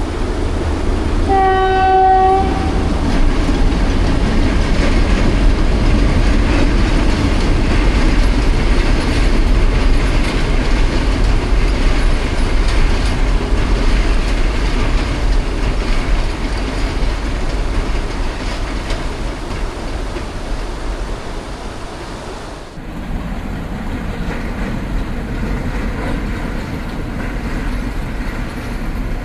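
Diesel train's horn sounds once for about a second, then the train runs on with a steady rumble of engine and wheels on the rails.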